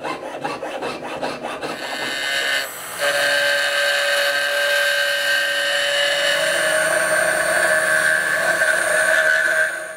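Drill press running while a file scrapes against metal stock spinning in its chuck to shape a rivet. A rasping scrape comes first; from about three seconds in, a steady high whine holds and then stops sharply just before the end.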